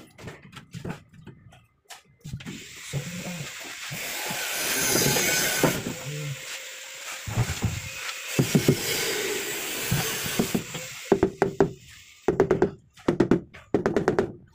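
Rubber mallet tapping a large ceramic wall tile to bed it into the adhesive: scattered knocks at first, then a quick run of knocks, about three a second, near the end. Through the middle, a steady rushing noise rises and falls.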